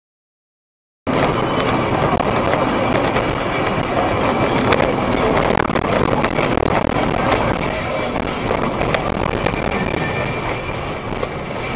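A vehicle's running noise, engine and road noise together, starting suddenly about a second in, with a few sharp clicks.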